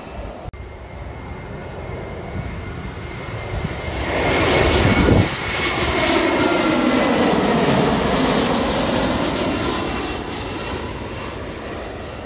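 Jet engines of an Airbus A320-family airliner on final approach with gear down, passing low overhead. The sound grows louder, peaks about four to five seconds in, and fades slowly as the plane moves away. A whine drops in pitch as it goes by.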